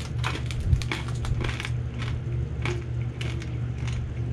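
Pop Rocks popping candy crackling in the mouth: irregular sharp snaps, a few each second, over a steady low hum.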